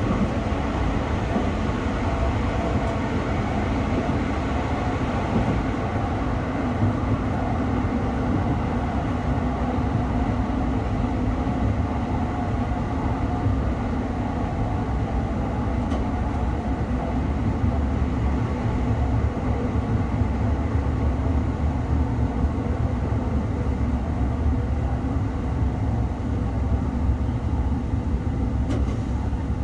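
JR Shikoku 1000-series diesel railcar running along the line, heard from the front of the car: a steady drone from the engine mixed with wheel and rail noise.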